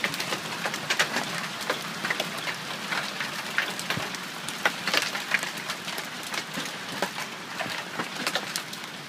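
Hail pelting down in a heavy hailstorm: a steady hiss of falling stones with many sharp, irregular clicks and knocks as hailstones strike the ground and hard surfaces.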